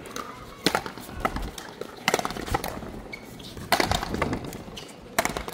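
A frontón paleta rally: paddles striking the ball and the ball cracking off the wall, as sharp knocks about every second and a half, over background music.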